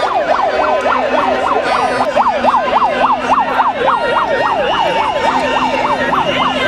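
A siren wailing in a fast yelp, its pitch sweeping up and down about four times a second.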